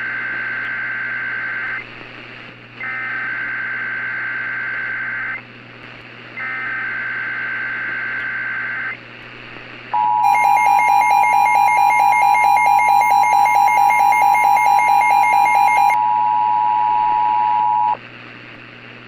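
Emergency Alert System broadcast opening: three screeching SAME digital header bursts, then the steady two-tone EAS attention signal held for about eight seconds. A second, rapidly pulsing electronic tone is layered over the attention signal for its first six seconds. Together they announce an incoming emergency warning.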